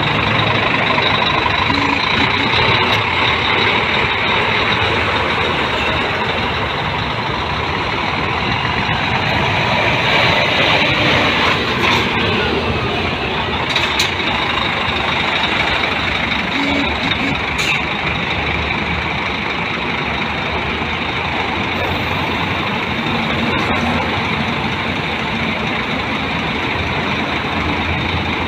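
Heavy diesel truck engine running steadily at idle.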